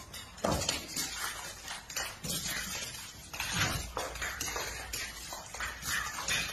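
A dog and a cat play-fighting, making irregular, noisy bursts of sound.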